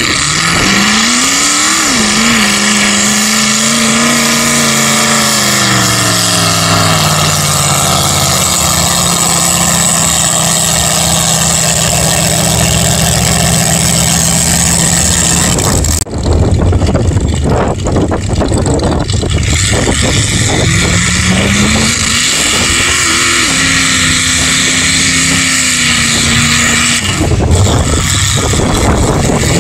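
Mud-bog pickup trucks' engines under hard throttle as they run through a mud pit: the engine note climbs, holds high and falls off, breaks off suddenly about halfway, then a second truck's engine climbs and holds again, over a steady wash of noise.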